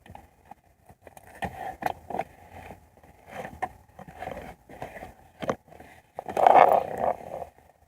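Scraping and clicking of a car interior part being handled and worked back into place, with a louder, longer scrape about six seconds in.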